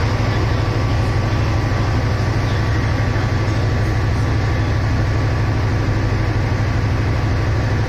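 Diesel locomotive engine idling: a steady low throb with a faint thin whine over it.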